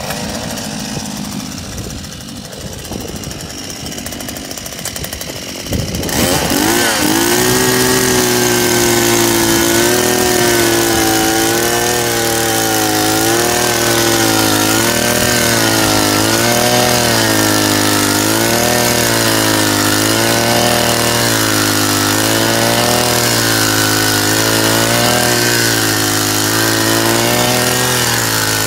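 Handheld petrol earth auger with a small engine, quieter and rougher for about the first six seconds, then running at high revs while drilling into soil. Its pitch swings up and down every second or two as the engine speed changes under load.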